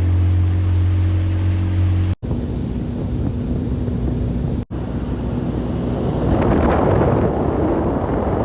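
A boat motor running steadily with a low hum, broken by two abrupt cuts. For the last couple of seconds, wind noise on the microphone grows louder over it.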